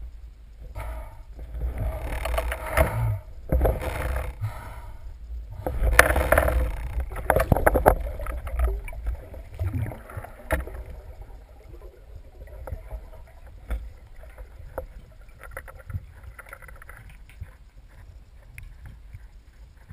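Underwater sound picked up by a camera mounted on a speargun as a freediver swims: water rushing and bubbling past the housing, with scattered knocks. The water noise is strongest over the first eight seconds, then settles to a quieter steady hiss and low rumble.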